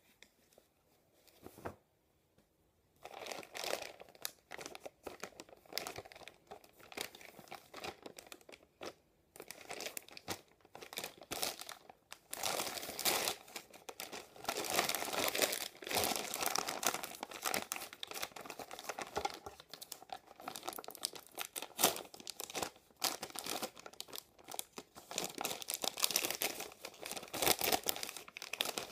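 Plastic poly mailer bag crinkling and crackling as it is handled, starting about three seconds in, and being cut open with scissors near the end.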